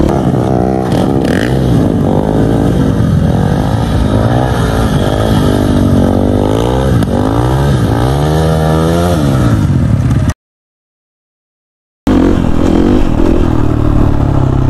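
Dirt bike engine revving hard, its pitch climbing and falling again and again, as in wheelie riding. About ten seconds in the sound drops out completely for about a second and a half, then the engine returns at a steadier pitch.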